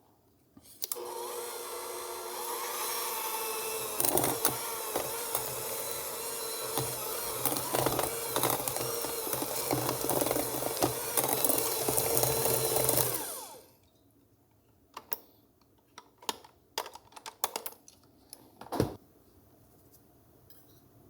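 Electric kitchen mixer running, beating a cream cheese filling: it starts about a second in, runs louder with irregular knocks from about four seconds in, and winds down after about thirteen seconds. A few light taps and knocks follow.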